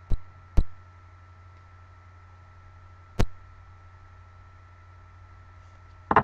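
Sharp taps from hands making contact while signing: one near the start, another half a second later, one about three seconds in and a quick double near the end. Under them runs a steady low hum with hiss.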